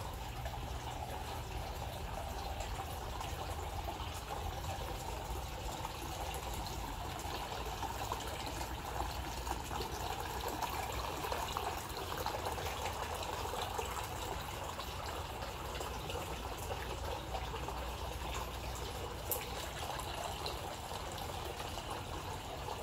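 Steady running, trickling water, with a low steady hum beneath it.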